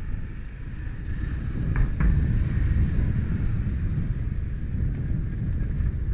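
A motorcycle riding at low speed: a low, blustery rumble of engine and wind on an action camera's built-in microphone, getting a little louder about two seconds in. Two short ticks come close together about two seconds in.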